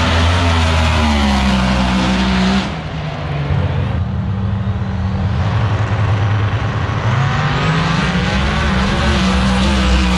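Drag race car engines running loud, the pitch rising and falling as they rev. The sound dips briefly about two and a half seconds in, then the engines carry on.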